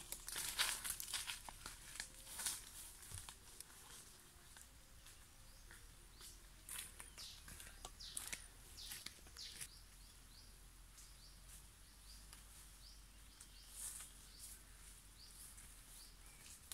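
Footsteps crunching and rustling through dry leaf litter and undergrowth, loudest in the first few seconds, then fainter. Over a quiet forest background, short high bird chirps come and go through the second half.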